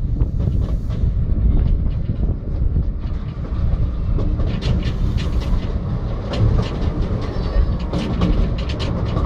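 Miniature railway carriage running along its track, heard from on board: a steady low rumble with irregular clicks from the wheels on the rails, the clicks coming thicker from about halfway through.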